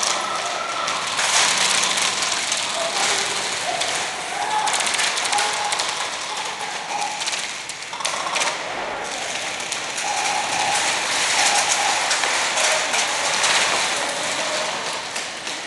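Many airsoft guns firing in rapid bursts: a dense, continuous rattle of shots, easing briefly about eight seconds in.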